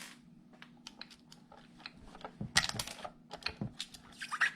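Irregular hard plastic clicks and rattles as the body shell of a 1/16 scale RC monster truck is handled and taken off, with louder clusters of clicks about halfway through and near the end.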